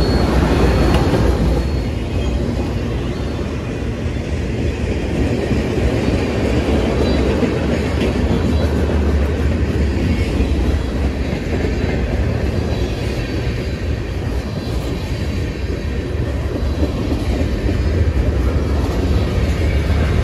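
Cars of a CN mixed freight train rolling past on the rails: a steady rumble of steel wheels on track, with occasional clicks.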